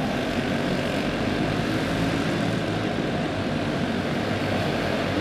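OHV clone single-cylinder kart engines running at racing speed on a dirt oval, a steady engine drone.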